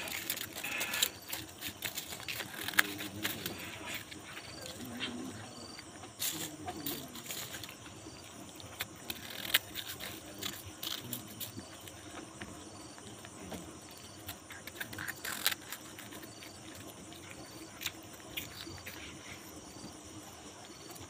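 Cats chewing crisp corn-stick snacks (Momogi), heard as irregular sharp crunching clicks. Behind them a cricket chirps at intervals over a steady insect drone.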